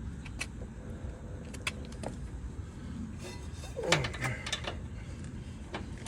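Sharp metallic clicks and clinks of hand tools working on a truck's accessory belt drive while the belt is moved off the alternator, over a steady low background rumble. About four seconds in there is one louder scraping creak that drops in pitch.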